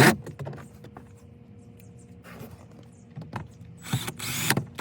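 Power drill run in short bursts, driving the glove box screws back in: a brief burst at the start and a longer one with a rising whine about four seconds in, with small clicks and knocks between.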